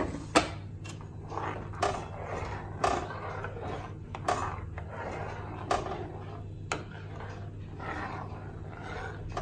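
Steel spoon stirring carrot purée into hot milk in a pan: wet scraping and sloshing, with sharp clinks of the spoon against the pan about every second, the loudest right at the start. A steady low hum runs underneath.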